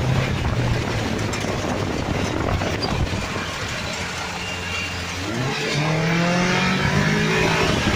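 Toyota 1NZ-FE inline four-cylinder engine in a VAZ 2105 Lada running under way, heard from inside the stripped-out cabin. From about five seconds in its revs climb steadily as the car accelerates.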